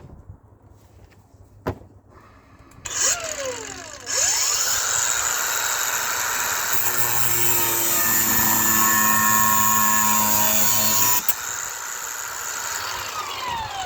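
An electric power tool's motor spins up about three seconds in with a rising whine and runs steadily at full speed with a harsh hiss. About eleven seconds in it is switched off and winds down with a falling whine.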